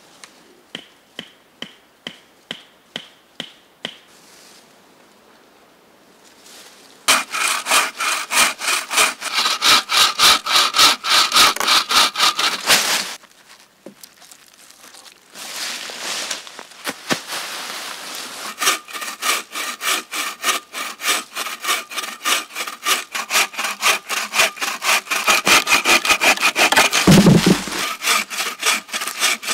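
Hand saw cutting wood in quick, rhythmic back-and-forth strokes of about three a second, in two long runs with a short pause between. Before the sawing there are about eight light, evenly spaced taps.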